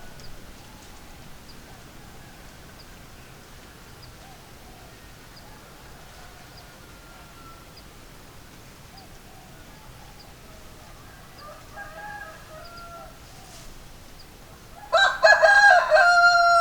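A rooster crows loudly near the end, one long pitched crow held steady that runs on past the end. Before it, a long quiet stretch with only faint, distant bird calls and a faint regular high ticking.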